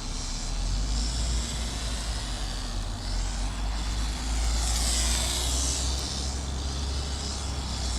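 Radio-controlled cars running on tarmac, one sweeping close past about four to six seconds in, over a steady low rumble.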